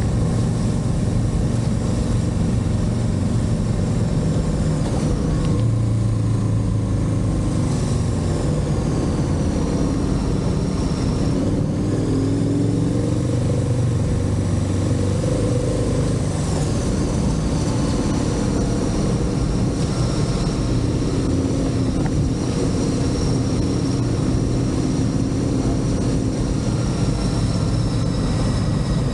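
Motorcycle engine running on the move, its pitch rising and falling a few times over a steady low rumble.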